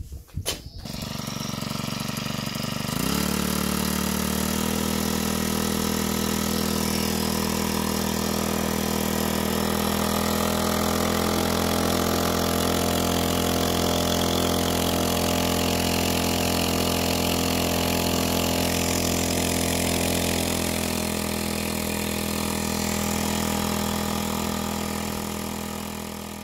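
Small red Ozeam 1.3 hp outboard motor running with a new two-blade propeller that churns the water in a test tub. The engine note rises about three seconds in, then holds steady under load, with the centrifugal clutch not slipping.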